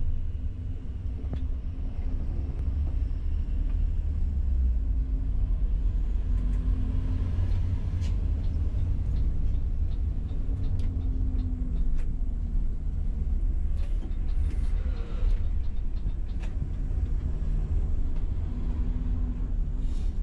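Steady low engine and road rumble inside a moving coach's cabin, the engine note shifting up and down as it drives. A few light clicks sound over it.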